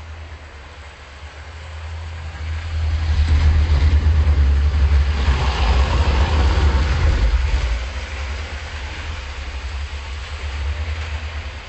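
Twin-motored Lima model Deltic locomotive running on the layout, its motors and wheels making a low rumbling buzz that grows louder about three seconds in, is loudest for four or five seconds as it passes close, then falls away.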